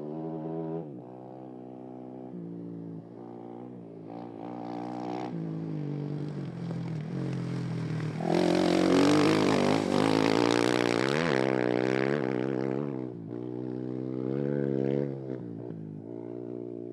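Rally motorcycle's single-cylinder engine at high revs, its pitch stepping down and climbing again several times with the gear changes. It is loudest from about 8 to 13 seconds in, with a rush of wind and spraying grit as it passes close, then drops back.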